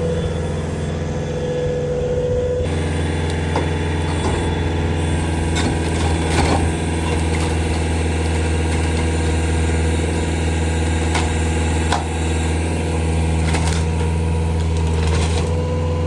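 Farm machine engine running steadily at low revs, with a few sharp clicks or snaps and a thin whine near the start and again near the end.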